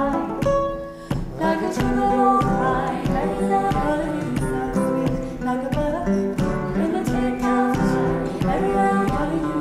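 A live song: a woman singing over a guitar accompaniment with a steady pulse of plucked notes.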